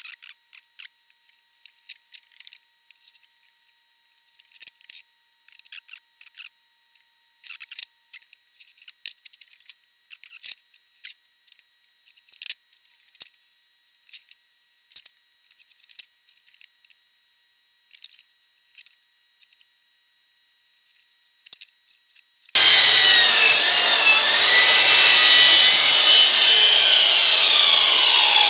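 Short, scattered pencil scratches and taps as stock is marked out. Then, about 22 seconds in, a power saw starts and cuts through the material: loud and steady, with a whine that shifts in pitch.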